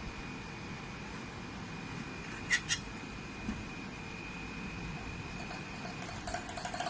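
Two sharp clicks close together, a softer knock a second later, then a quick run of small clicks near the end, from hard parts being handled, over a steady hum with a thin high whine.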